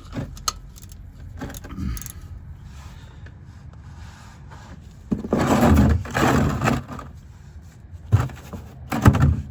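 Hand-tool handling noise: metal tools clinking, rubbing and scraping, with a louder stretch of scraping a little past halfway and a few sharp knocks near the end.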